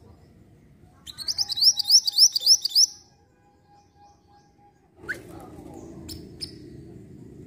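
Minivet singing: a fast run of about nine sharp, rising high notes lasting about two seconds. About two seconds later comes a single short chirp and a few clicks over low background noise.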